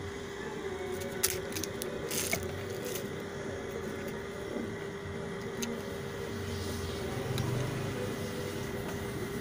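Soldering work on a TV circuit board: a cluster of short crackles and clicks in the first three seconds, over a steady low hum.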